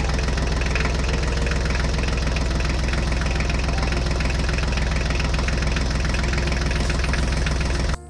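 Tractor engine sound effect idling steadily, a low engine note with a fast, even knock. It cuts off abruptly at the end.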